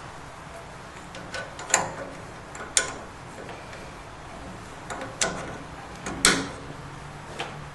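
Scattered sharp clicks and knocks, four louder ones among several small ticks, of hard parts being handled and fitted as a piezo igniter is mounted on the side of a gas water heater's control valve.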